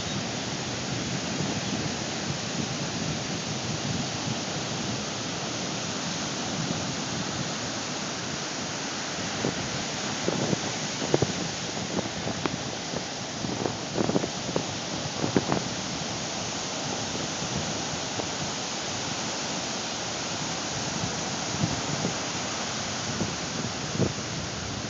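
Ocean surf on the beach, a steady rushing wash of waves, with a few short thumps of wind or handling on the phone's microphone around the middle.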